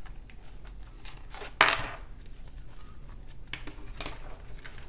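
Hands handling a zip wallet and a translucent cash envelope holding bills on a tabletop: light rustles and taps, with one sharp knock about a second and a half in and a few smaller taps later.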